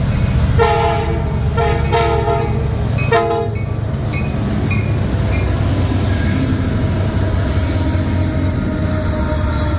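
Locomotive air horn, a multi-chime K5LA, sounds three or four short blasts in the first few seconds, then the freight train keeps rolling past with a steady low rumble and a few faint wheel squeaks.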